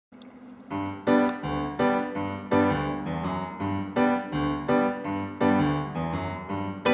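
Background music: a gentle keyboard melody, a steady run of notes struck two to three times a second, starting within the first second.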